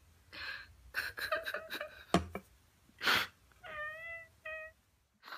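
A cat meowing twice, briefly, near the end: one short call and a shorter one. Before it come soft breathy noises and a sharp click.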